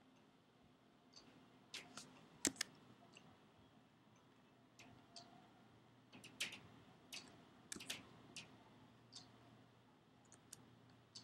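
Scattered, quiet clicks of computer keyboard keys and mouse buttons, about a dozen, the loudest about two and a half seconds in and a cluster between six and eight seconds, over a faint steady hum.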